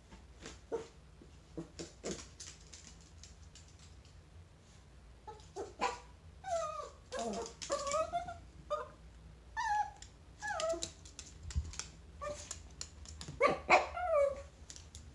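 Chihuahua whimpering and whining in short, high, wavering cries, with a few yips. The cries come thickly in the second half, and a few light clicks come before them.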